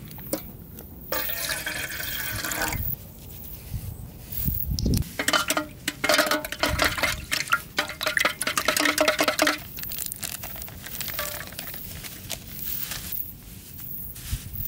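Liquid being poured into a container, in two spells, the second longer and mixed with small clicks of handling.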